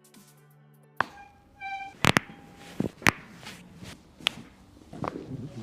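Intro music ends, then a chiropractic session begins with a series of sharp, irregular slaps and knocks of hands striking the patient's body, the loudest about two and three seconds in.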